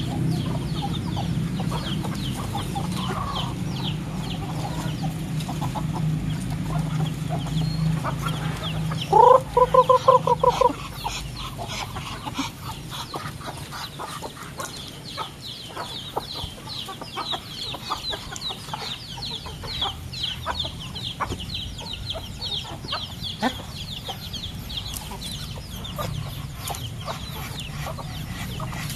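A backyard flock of chickens clucking while feeding, with one loud pulsed call about nine seconds in. Quick high peeping runs through the second half, over scattered light clicks of pecking on gravel.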